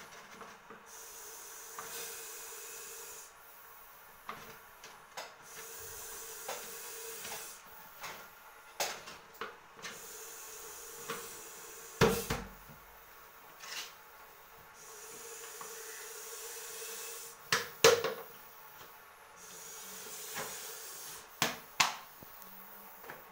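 Clear plastic bottle knocked and scraped against a concrete floor as a snake is coaxed into it, with scattered sharp knocks, the loudest about twelve and eighteen seconds in. Stretches of steady hiss a few seconds long come and go between them.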